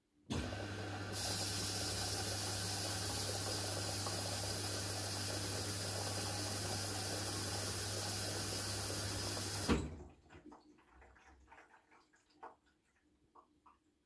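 Haier washing machine's water inlet valve opening with a hum and water rushing into the machine. It shuts off suddenly with a knock after about nine and a half seconds.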